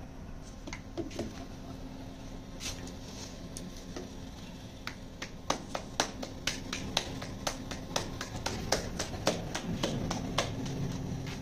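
Hands patting and flattening a ball of paratha dough, a run of sharp slaps at about two a second after a few scattered ones.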